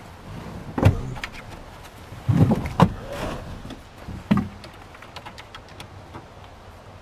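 Hand tools and plastic dash trim being handled while screws go back into the dash bezel: a few sharp knocks and clunks about one second, two and a half seconds and four and a half seconds in, with scattered small clicks between.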